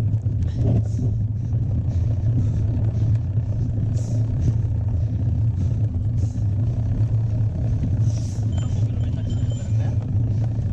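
Steady low wind rumble buffeting a small camera microphone while mountain biking, with scattered clicks and rattles and a faint brief high whine about two-thirds through.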